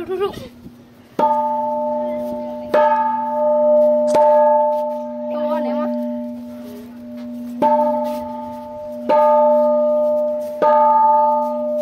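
A metal pagoda bell hung from a pole is struck six times, in two sets of three strikes about one and a half seconds apart. Each strike rings on with a steady low hum and higher overtones that carry over into the next strike.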